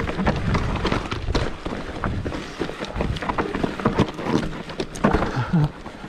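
Mountain bike riding over a rough dirt trail: a steady run of irregular knocks and rattles from the tyres and frame hitting roots and stones, with wind rushing over the microphone.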